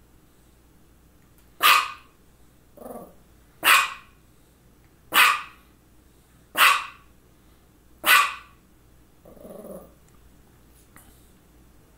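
Small white dog barking: five sharp, loud single barks about a second and a half apart, with two softer, lower vocal sounds in between, one after the first bark and one after the last.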